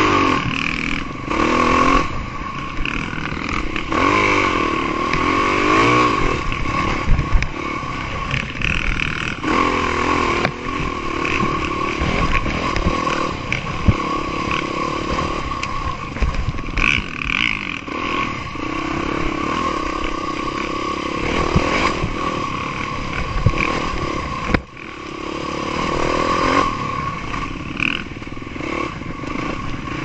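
Yamaha dirt bike engine running hard on a rough dirt trail, its revs rising and falling several times as the throttle opens and closes, with the bike clattering over bumps. About 25 seconds in the sound briefly drops away, then picks up again.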